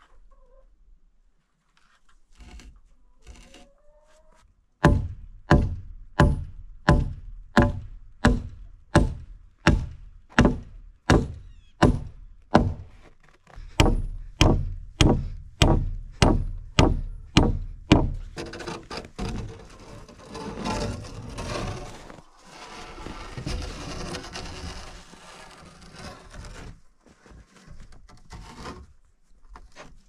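Hammer driving nails into wooden roof rafters: steady blows about two a second in two long runs, with a short break near the middle, stopping after about eighteen seconds. A stretch of rustling noise follows.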